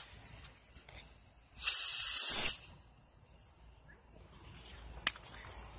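A small spinning firework, a two-color spaceship, hisses in a loud burst of about a second with a whistling tone, a little under two seconds in. A single sharp crack comes near the end.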